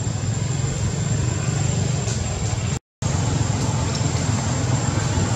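Steady low rumble of vehicle traffic, with a thin high whine held above it. The sound cuts out completely for a moment just under three seconds in.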